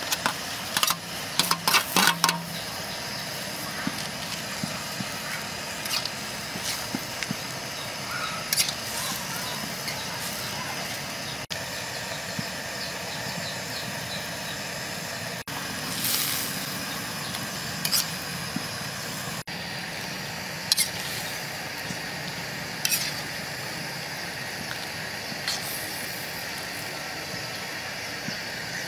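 Pot of soup boiling: a steady bubbling hiss with scattered sharp pops and clicks.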